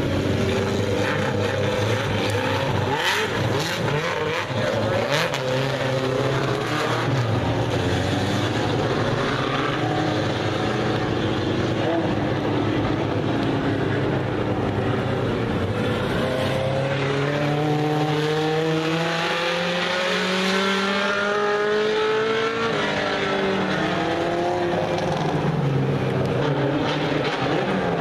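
Super Stock four-cylinder dirt-track race cars running laps, several engines at once, their pitch rising and falling as the cars accelerate and pass. About two-thirds through, a long rise in engine pitch as the pack accelerates.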